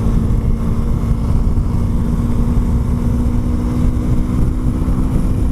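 2016 KTM Duke 390's single-cylinder engine droning at a steady pitch while cruising at highway speed, over a dense low rushing noise.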